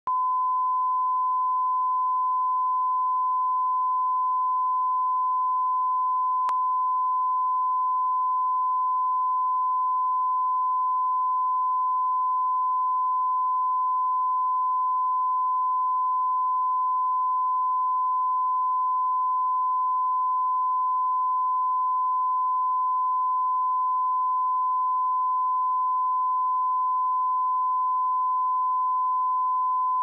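A steady 1014 Hz sine-wave test tone: one pure pitch held unchanged.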